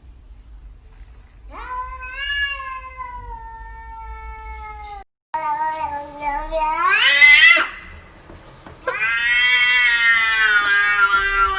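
A cat making three long, drawn-out meows, the second rising steeply in pitch into a yowl before it breaks off.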